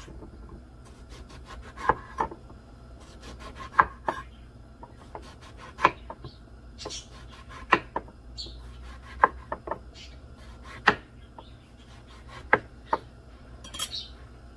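Chef's knife slicing a peeled eggplant into slabs on a wooden cutting board: a soft scrape as the blade goes through the flesh, then a sharp knock of the blade on the board, about every one and a half to two seconds, sometimes as a quick double knock.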